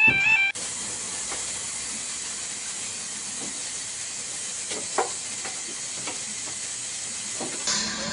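Narrow-gauge 0-4-0T steam tank locomotive standing with steam hissing steadily, with a few light knocks and a sharp clank about five seconds in. A warbling tone cuts off suddenly half a second in, and a higher ringing sound begins near the end.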